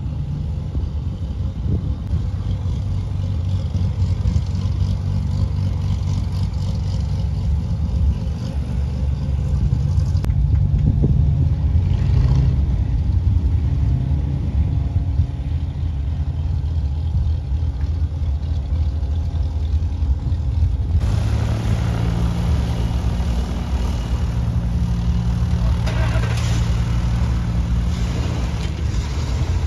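Piston engine of a small single-engine high-wing propeller plane running at low taxi power, a steady low drone. About two-thirds of the way through it becomes stronger and fuller as the plane taxies up close.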